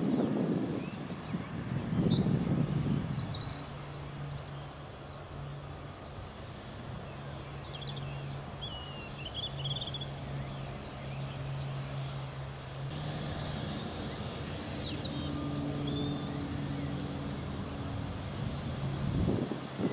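Embraer 195 jet airliner slowing on the runway after touchdown, its low engine rumble dying away in the first three seconds, then a steady low hum. Small birds chirp a few times.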